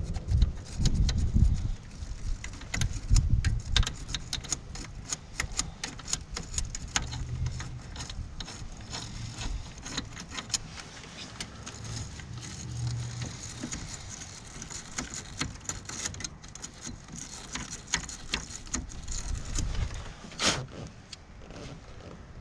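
Hand tools scraping and clicking against a corroded car battery terminal: a dense, uneven run of quick metallic clicks, with a few low thumps in the first seconds and one louder click near the end.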